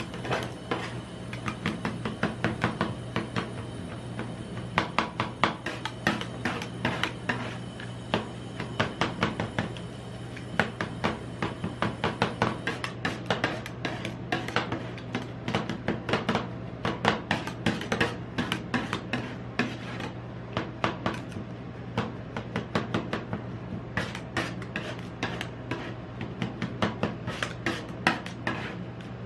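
Two metal spatulas chopping melon into ice cream base on a steel cold plate for rolled ice cream: rapid, irregular clacking of the blade edges striking and scraping the plate, over a steady low hum.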